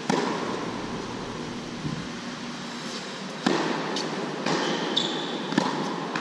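Tennis racket strikes and ball bounces on an indoor hard court: a sharp pop of the near player's forehand right at the start, then more hits and bounces, the strongest about three and a half and five and a half seconds in. A brief high squeak comes about five seconds in, over a steady rush of air from the hall's ventilation fans.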